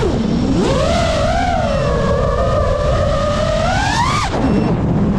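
FPV quadcopter's brushless motors whining, the pitch swooping up and down with the throttle: it dips low right at the start, climbs steadily to a high peak about four seconds in, then drops sharply.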